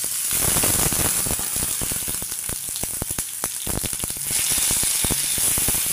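Chopped onion hitting hot ghee in a steel frying pan and sizzling with many sharp crackles, the sizzle jumping up about a third of a second in. The onion is being stirred with a wooden spatula.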